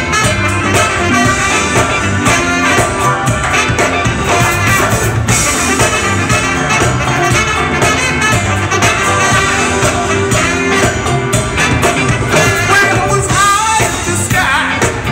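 A live funk and soul band playing an upbeat number: drum kit, bass guitar, electric guitars, keyboard and congas with a saxophone and trumpet horn section, over a steady beat.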